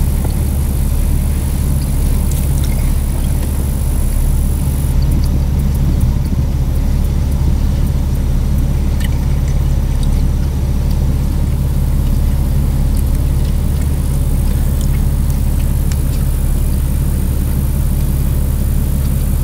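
Vehicle engine running steadily at low revs, an even low drone.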